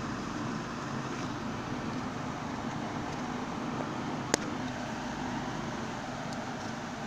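Steady background noise, with a single sharp click about four seconds in as the Xerox fuser assembly is handled.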